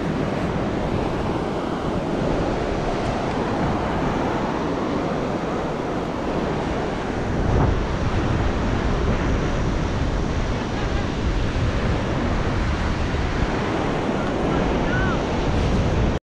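Ocean surf breaking on a sand beach, with wind buffeting the microphone as a steady low rumble that swells briefly about halfway through.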